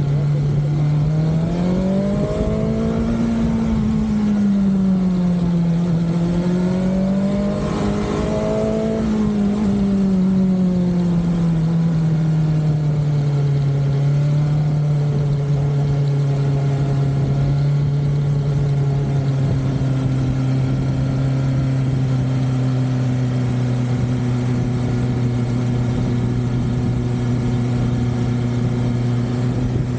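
BMW S1000XR motorcycle's inline-four engine under way, its revs rising and falling twice in the first ten seconds, then holding a steady pitch.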